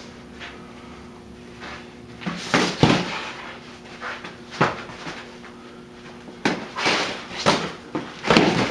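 Swords striking in a two-sword sparring bout, hitting the opponent's weapon, shield and body: a run of sharp knocks, two close together a couple of seconds in and a quicker cluster in the last few seconds.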